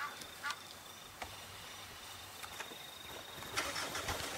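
Quiet outdoor ambience with a faint steady high tone and a few sharp clicks scattered through it. A louder rustling patch comes in about three and a half seconds in.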